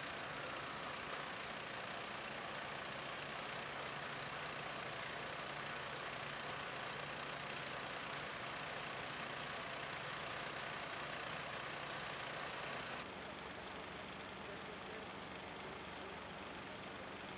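Fire engines idling steadily: a continuous engine rumble with a low hum. A short sharp click comes about a second in, and the sound drops a little in level about thirteen seconds in.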